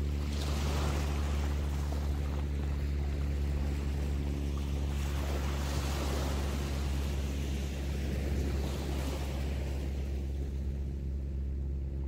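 Small ocean waves breaking and washing up on a sandy beach, the surf swelling and fading several times over a steady low rumble.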